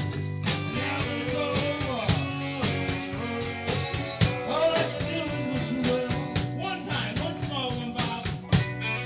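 Live rock band playing: two electric guitars and an electric bass over a drum kit keeping a steady beat with sharp hits, with pitched lines that bend up and down.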